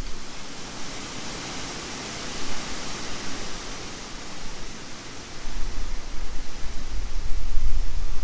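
A steady rushing hiss of tropical-storm wind, with gusts buffeting the microphone at the start and again from about five seconds in.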